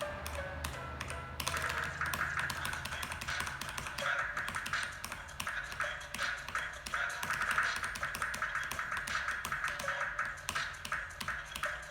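Rapid keystrokes on an E-DRA EK387 mechanical keyboard with Huano Brown switches, many clicks a second, tapped over rhythm-game music that plays throughout.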